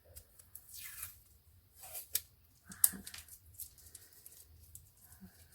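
Washi tape being pulled from the roll and torn off: a few short rustling pulls and one sharp click.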